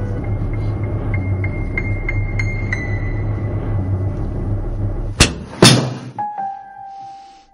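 Film soundtrack: a low rumbling drone under high held and repeated tones, broken about five seconds in by two sharp loud bangs half a second apart, the second the louder. The rumble then stops and a single held tone carries on.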